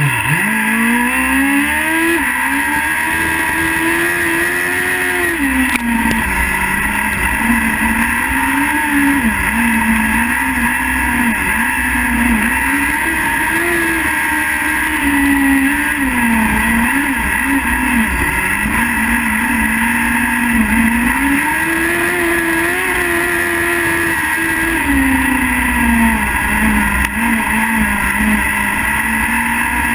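Speedway sidecar engine racing, heard from onboard: it revs up hard off the start line in the first couple of seconds, then its pitch rises and falls over and over as the throttle is eased for each bend and opened again on the straights.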